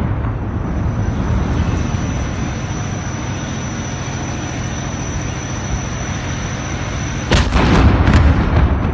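Steady low rumble, then about seven seconds in a single loud blast with a ringing echo that lasts about a second.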